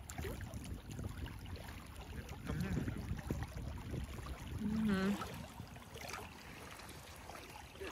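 Sea wind buffeting the microphone, with small waves lapping in shallow water. About five seconds in, a person makes a short voice sound with a wavering pitch.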